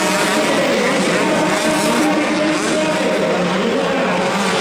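Several motocross dirt-bike engines revving on the track, their pitch rising and falling as the riders accelerate and ease off.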